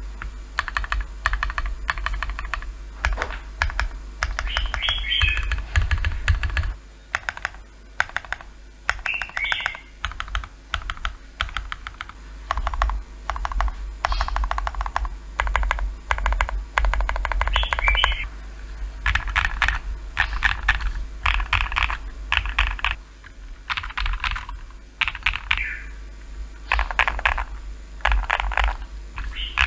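Mechanical keyboard fitted with First Love switches (PC top housing, POM bottom housing, 50 g springs) being typed on in quick bursts of keystrokes with short pauses between runs.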